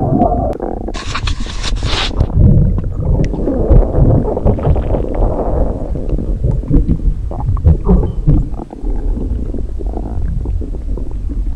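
Human stomach rumbling: irregular, low bubbling gurgles, with a brief hiss about a second in.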